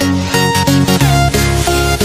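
Background electronic dance music: a repeating synth pattern over a steady beat, with a heavy bass line coming in about a second in.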